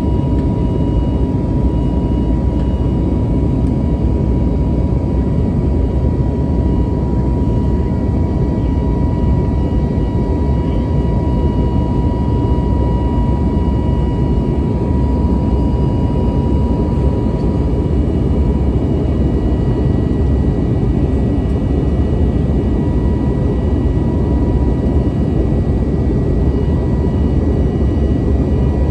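Cabin noise of an Airbus A320neo in flight, heard from a window seat beside the wing: a steady, loud rumble of its CFM LEAP-1A turbofan engines and the airflow, with a thin steady whine above it.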